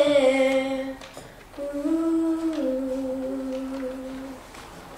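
A girl singing solo, drawing out the final notes of a worship song in two long phrases, each stepping down in pitch at its end; the last note fades out near the end.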